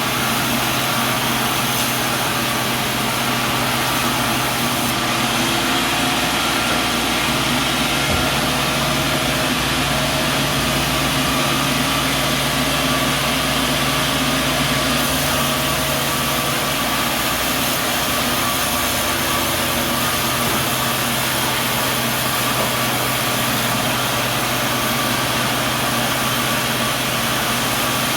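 Sawmill machinery running steadily: an unbroken engine-like drone with a constant hiss over it.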